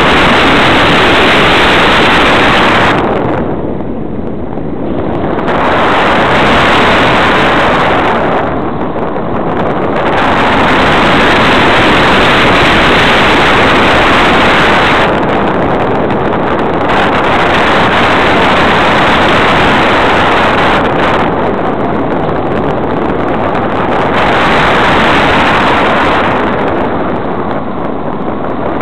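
Loud, steady rush of airflow and motor noise picked up by a camera mounted under the wing of a radio-controlled motor glider in flight. It eases off briefly about every five or six seconds.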